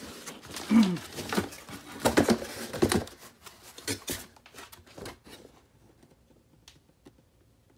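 Handling noise as an LED grow light panel with a metal frame is worked out of its cardboard box by hand: rustling, scraping and knocks of cardboard and metal for the first few seconds, then only a few faint clicks.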